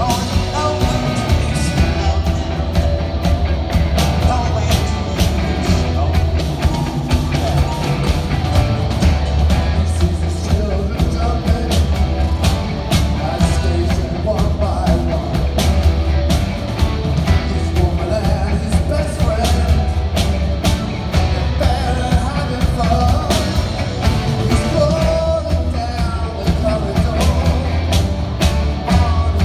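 Live rock band playing, with flute, electric guitar, bass guitar and drums under a male lead singer, and a heavy, boomy bass. It is recorded on a mobile phone.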